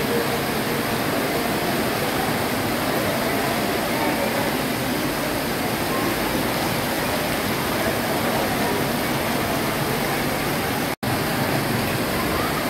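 Heavy rain pouring down, a dense, steady hiss, cut off for an instant about eleven seconds in.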